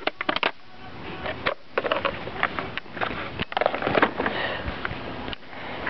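Irregular clicks, knocks and rustles of broken plastic vacuum-cleaner parts being handled and sorted through.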